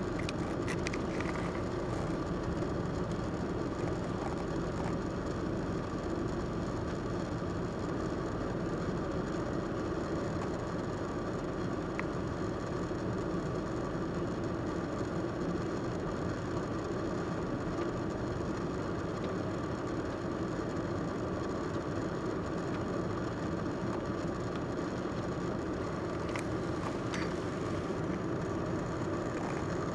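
Steady rumble of car traffic, with engines idling and tyres moving through water on a rain-soaked, flooded street.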